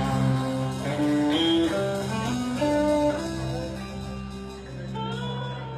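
Live blues band music: a guitar plays a slow run of single notes over a held low bass note, the whole slowly fading as the song winds down.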